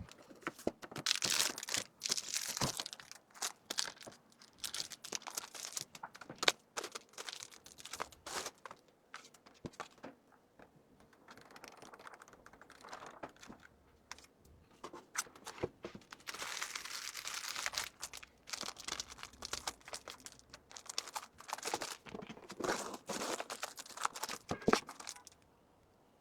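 Packaging crinkling and rustling as merchandise is handled and packed, with scattered small clicks and taps. There are three louder stretches of crinkling: near the start, about two-thirds of the way through and near the end.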